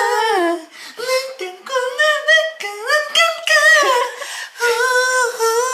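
Someone singing a wordless tune in a high voice. The notes are held and slide up and down between pitches.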